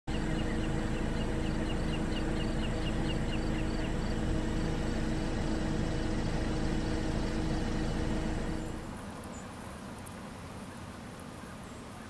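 Outdoor marsh ambience: a steady low drone with a high chirp repeated about four times a second over the first few seconds. About nine seconds in, the drone cuts off and a quieter ambience follows, with a few faint high calls.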